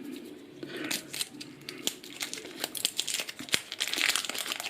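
Wrapper of a Chewits X-Treme chewy candy stick crinkling and being torn open: a run of sharp crackles that starts about a second in and gets busier toward the end.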